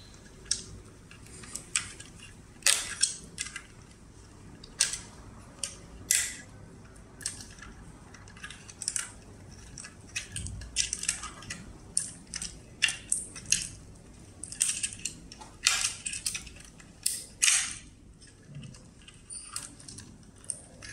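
Plastic wire-harness plugs being pulled out of an electric scooter's controller board, with irregular sharp clicks and the rustle and rattle of the wires being handled.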